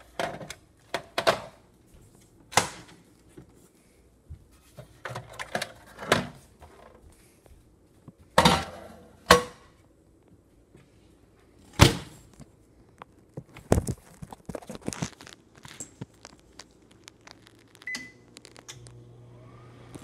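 A series of sharp knocks and thumps as a Nintendo 64's plastic case is handled and set inside a microwave oven. Near the end a short keypad beep sounds, then the microwave oven starts running with a steady hum.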